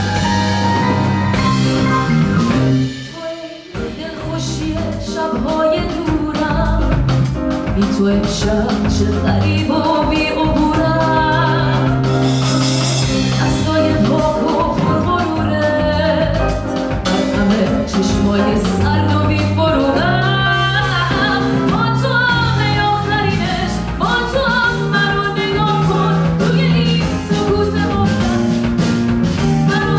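Live band music with a woman singing over bass and drums. The band drops out for a moment about three seconds in, then the song carries on.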